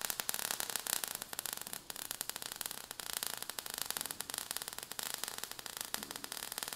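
Crackling sound effect of falling sparks: a steady fizz of many rapid tiny clicks over a high hiss.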